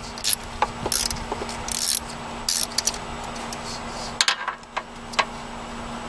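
Ratchet wrench clicking in short strokes, about one stroke a second, with a quick cluster of sharp clicks about four seconds in.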